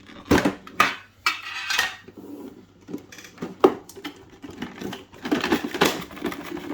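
Packaging being opened and handled: several sharp clicks and knocks, with a scraping, rustling stretch about a second and a half in.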